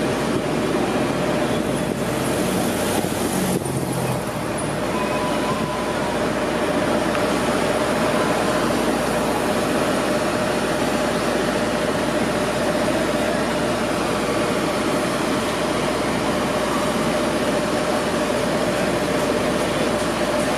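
Steady city street traffic noise: cars and vans driving through an intersection, with a constant hum underneath.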